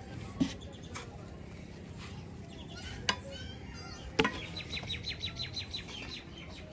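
A few sharp slaps and knocks as roti dough is handled and turned on an iron griddle over a wood fire. A bird chirps a quick run of short high notes just after the middle.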